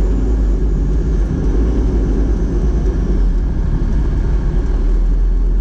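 Fire truck driving at speed: a steady, loud rumble of engine and road noise, heaviest in the deep lows.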